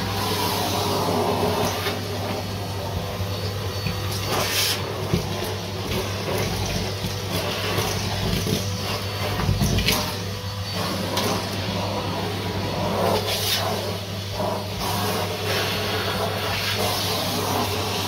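Numatic Hetty tub vacuum cleaner running steadily with a low motor hum and rushing air, its crevice tool sucking along the carpeted stair treads. A few brief louder rattles, about four and ten seconds in, as bits of debris are drawn up the hose.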